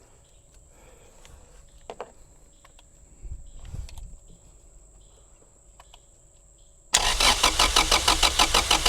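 After a few faint clicks and knocks, the 1992 Acura Integra's four-cylinder engine starts cranking over on the starter about seven seconds in, with an even, rapid pulse. It does not catch, which fits the car's fuel delivery problem, with the fuel pump not working.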